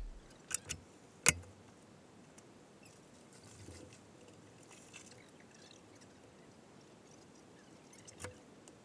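Three sharp clicks in the first second and a half, the third the loudest, then a faint, quiet background with one softer click near the end.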